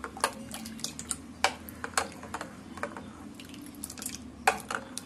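Metal whisk stirring a thin, watery raw-mango pulp mixture in a bowl: irregular clinks and taps of the whisk against the bowl, a few each second, with a little liquid sloshing.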